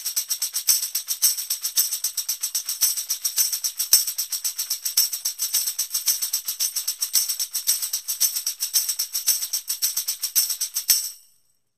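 Tambourine shaken in a fast, even rhythm, its metal jingles ringing bright with every stroke. The shaking stops abruptly near the end.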